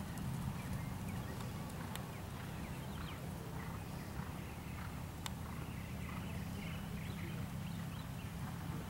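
A horse's hoofbeats as it canters and jumps on sand arena footing, over a steady low rumble.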